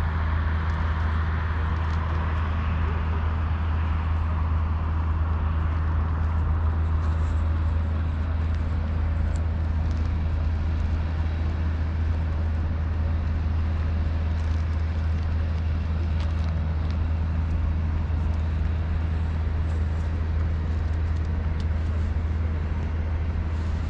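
Steady low rumble of road traffic with an even outdoor city hum, unchanging, with no single event standing out.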